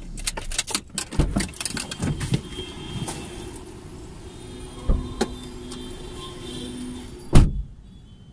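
A driver getting out of a car, heard from inside the cabin: clicks, knocks and rustling with street noise coming in through the open door, then the car door shut with a loud thump near the end, after which the sound drops to a quiet cabin hush.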